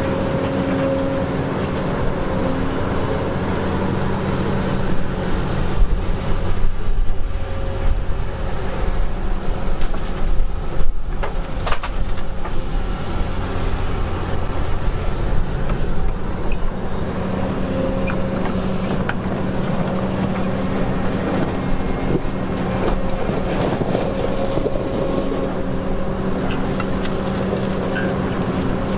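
Heavy diesel earthmoving machinery, a crawler excavator and articulated dump trucks, running steadily. From about five to twelve seconds in, a louder, uneven stretch brings several sharp knocks.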